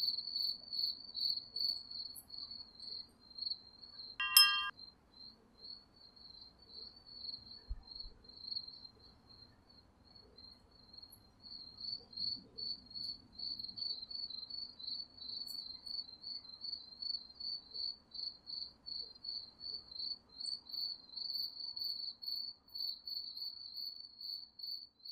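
Crickets chirping steadily in quick pulses, growing louder about halfway through. A single short ringing note sounds once about four seconds in.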